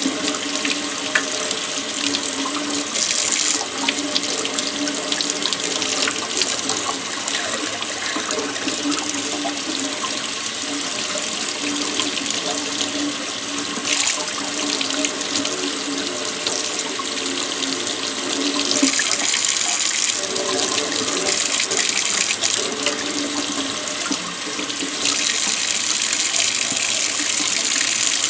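Kitchen faucet running steadily into a stainless-steel sink, the stream splashing over a kukri blade as the mustard patina coating is rinsed off. Near the end the water falls straight into the sink and the splashing gets louder and brighter.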